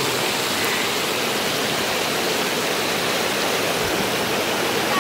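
Shallow stream running over stones, a steady rushing of water.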